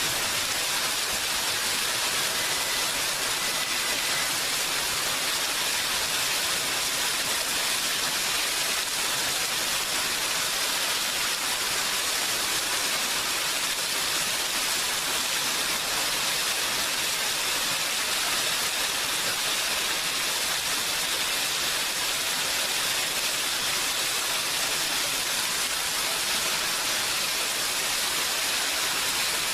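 Steady rainfall, an even, unbroken hiss of falling rain with no pauses or changes in strength.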